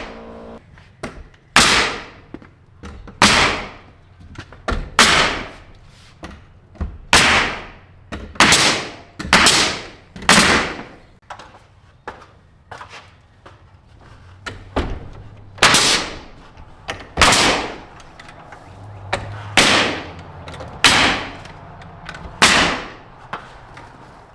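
Hammer driving nails into a plywood wall sheet: a dozen or so loud, sharp strikes at an uneven pace of roughly one every one to two seconds, with lighter taps in between.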